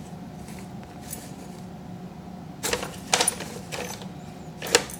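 Paper bag crinkling and rustling as a cat shifts about inside it, in a few short bursts from a little past the middle, the sharpest near the end.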